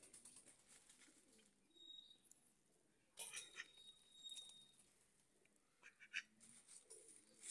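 Ducks' faint, soft low calls, with a burst of rustling and clicks about three seconds in as a duck snatches a fish from a hand. A thin high whistle follows briefly, and there are a few more clicks near six seconds.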